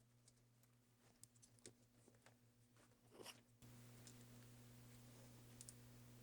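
Near silence with faint scattered clicks and light scraping from small laptop parts being handled during reassembly, and a low steady hum that gets louder a little past halfway.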